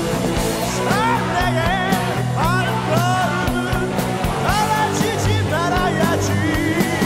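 Korean heavy metal song playing, with a high lead melody that bends up into its notes and wavers, coming in about a second in over steady low notes and regular beats.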